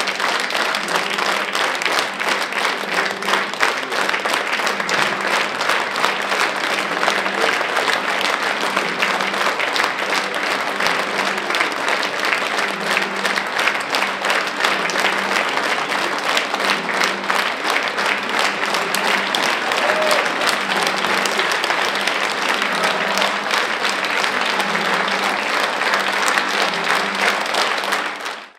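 Large theatre audience applauding at a curtain call: dense, steady clapping that cuts away at the very end.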